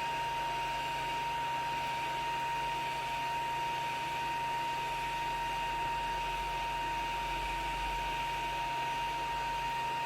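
Steady hum and hiss with a thin constant whine, unchanging, with no distinct events.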